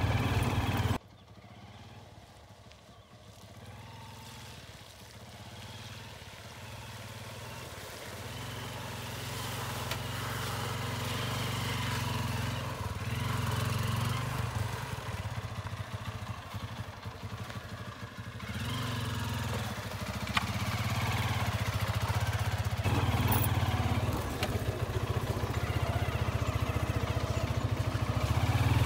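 Motorcycle engine running steadily, growing gradually louder through the stretch. The engine is the Hero Karizma R's single-cylinder engine.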